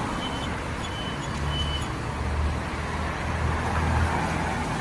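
Water spraying steadily over a toy tanker truck as it is washed, with a low hum underneath.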